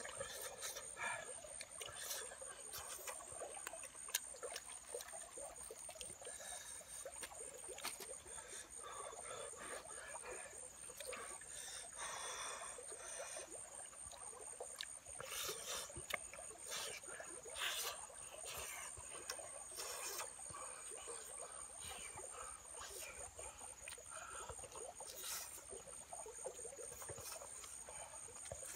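Close mouth sounds of someone eating grilled fish: chewing and lip smacking, with small clicks as fingers pick the flesh off the fish. A steady high-pitched whine runs underneath.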